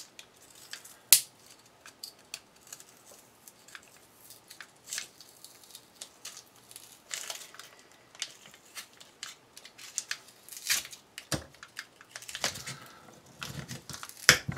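A 60-gram aerial firework shell being picked and torn open by hand: scattered scraping and crinkling of its wrapping, with sharp clicks, the loudest about a second in.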